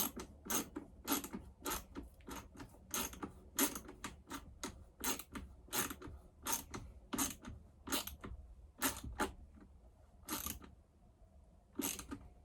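Hand ratchet wrench clicking in short, regular strokes, about two a second, as a nut is run off a bolt. The strokes stop about ten seconds in, and one more comes near the end.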